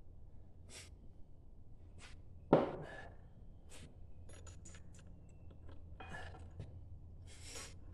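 Scattered small metal clicks and knocks as shift forks and other transmission parts are picked up and fitted into a Honda XR400 engine's crankcase half, with one sharper knock about two and a half seconds in.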